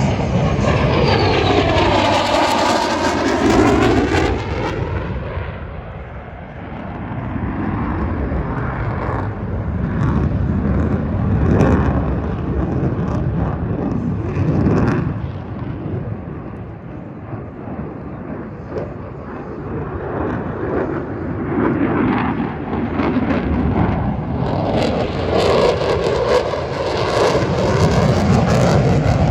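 Jet aircraft engine noise sweeping past twice: a close pass a couple of seconds in and another building near the end, each with the swirling, phasing sound of a jet going overhead.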